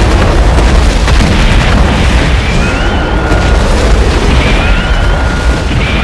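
Dubbed-in anime sci-fi sound effects: continuous heavy booming explosions, over which a steady high electronic tone ending in a rising warble repeats about every two seconds.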